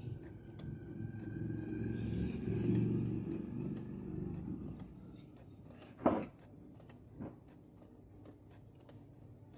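Canon MG2570S inkjet printer running a colour copy: its paper-feed and print-head motors whir with a faint whine, easing off about five seconds in. A sharp clack about six seconds in, then a smaller one a second later.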